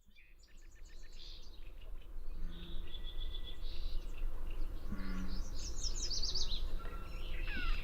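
Gray catbird singing: a varied string of choppy chirps, a short high trill and a quick series of downward-sweeping notes, fading in at the start over a low background rumble.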